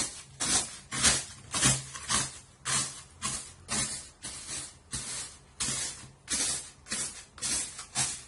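Hardened, glass-like homemade borax flux being crushed and ground to powder in a container. It makes a steady run of short rasping strokes, about two a second.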